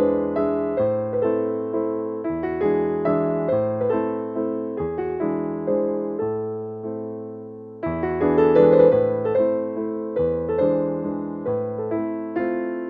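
Background piano music: a gentle keyboard melody over a bass line, with each note struck and dying away. It thins out a little past the middle, then comes back fuller and louder.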